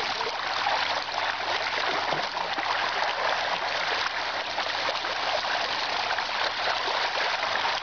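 Continuous, dense splashing of a shoal of fish thrashing at the river surface close to the bank: a dorado feeding frenzy.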